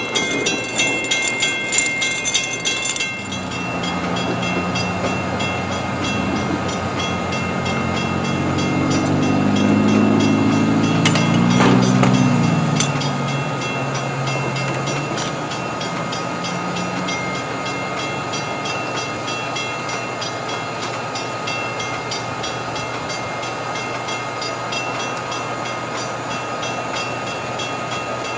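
Diesel locomotive engine running, its low hum growing louder and then sliding down in pitch about twelve seconds in before settling steady. A couple of sharp knocks come around that point.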